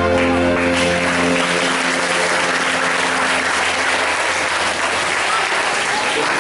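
Audience applauding steadily as the final held notes of the recorded music fade out in the first second or so.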